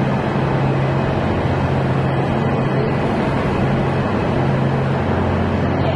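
Passenger train running, heard from inside the carriage: a steady loud rumble with a constant low hum.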